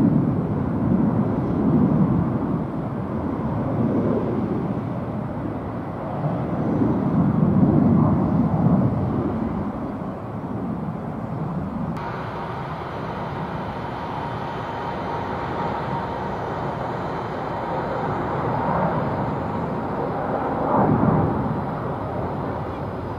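Jet engines of a departing Boeing 767-300ER airliner on climb-out, a deep rumble that swells and fades in waves. About halfway through it cuts off suddenly and is replaced by the steadier, quieter rumble of a Boeing 777-300ER's GE90 engines climbing out after take-off, with a faint steady whine.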